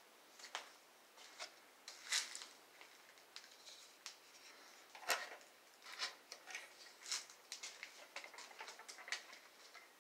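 Irregular light clicks and rustles of handling, the sharpest about five seconds in, as a steel padlock hanging on a wooden storage-cage door is taken in hand and moved.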